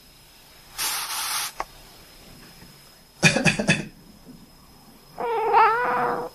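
A short breathy hiss, then a person coughing about four times in quick succession, then a cat answering with one long, wavering meow.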